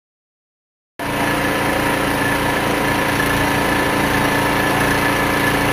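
Small engine running steadily at a constant speed, cutting in abruptly about a second in.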